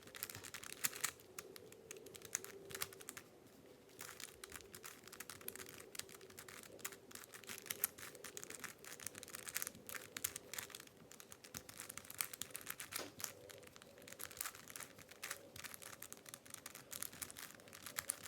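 Plastic Killer Minx twisty puzzle being turned rapidly by hand, a dense stream of small clicks and clatters, sped up by the time-lapse.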